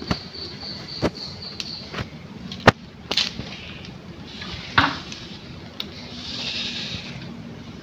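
Handling noise: scattered sharp clicks and taps, about seven in all, with a faint pulsing high tone over the first two seconds and a soft hiss near the end.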